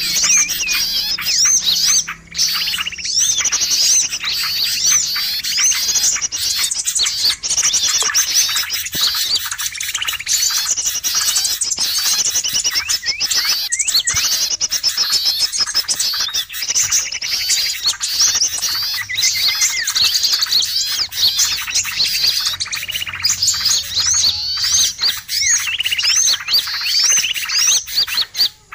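Bird-lure recording of many small songbirds chattering noisily at once: an unbroken stream of rapid, overlapping high chirps and short whistled notes. It is the kind of lure call played to draw wild small birds in.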